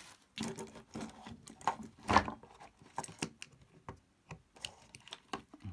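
Scattered small clicks, taps and rustles of wires and parts being handled on a breadboard circuit, the loudest about two seconds in.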